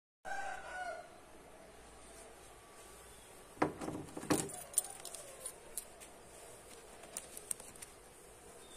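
A bunch of keys jangling and clinking as they are lifted off a wall key hook, loudest about four seconds in, then light metallic clicks for a few seconds. A brief pitched sound is heard right at the start.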